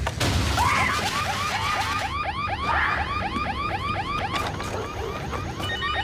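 A loud crash at the start from an attempted break-in, then a home burglar alarm siren going off in fast, even rising chirps, about five a second. It was tripped by the intruder.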